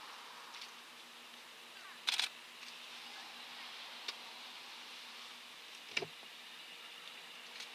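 Faint trackside ambience with a steady low hum, broken by a short burst of rustling noise about two seconds in and a sharp click about six seconds in.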